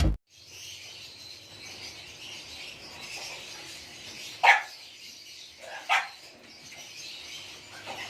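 Many lovebirds chattering together as a steady high-pitched background, with two short loud cries about four and a half and six seconds in.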